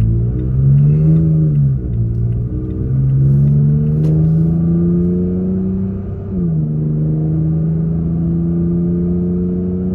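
Toyota Tacoma with a Flowmaster FlowFX dual cat-back exhaust accelerating, heard from inside the cab. The engine note rises, drops at an upshift about two seconds in, climbs again and drops at a second upshift about six seconds in, then holds steady at cruising speed.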